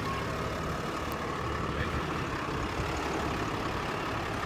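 Engine of a Ram pickup-based wildland fire truck idling steadily.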